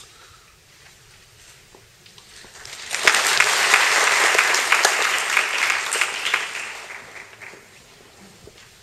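Audience applause that starts about three seconds in, rises quickly, and fades out over the last few seconds.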